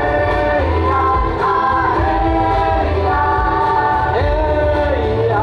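Live music with a group of voices singing together, holding long notes with occasional slides between them, over a steady bass.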